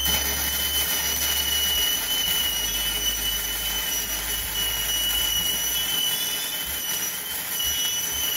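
WeldPro 155GSV MIG welder running a continuous bead: the steady hiss of the arc, with a thin high-pitched whine underneath. It is a test weld showing that the machine works again now that its blown capacitors have been replaced.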